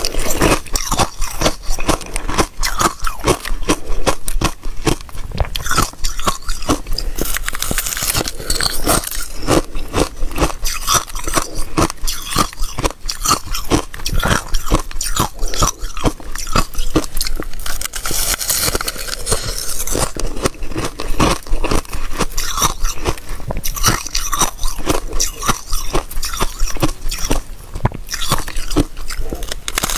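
Thin, flaky ice being bitten and chewed close to the microphone: a dense, continuous run of crisp crunches and crackles.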